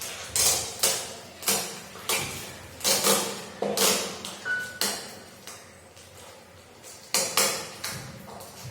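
Casio CT-S200 keyboard being tried out: a run of sharp percussive hits at uneven intervals, each ringing briefly, with a quieter stretch in the middle.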